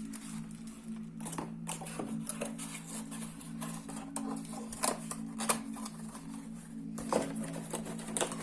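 Scattered clicks, taps and light knocks of a laptop and its packaging being handled, over a steady low hum.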